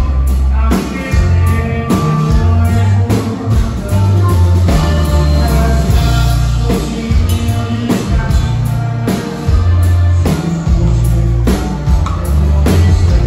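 Live norteño band playing: button accordion, guitars, electric bass and drum kit, with a heavy bass line and a steady drum beat.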